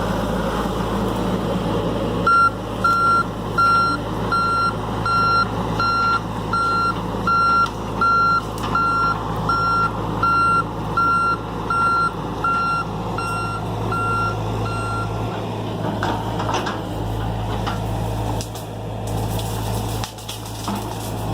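John Deere excavator's diesel engine running steadily while its travel alarm beeps, about one and a half beeps a second, for most of the time. The beeping stops and a few clanks of the machine working follow near the end.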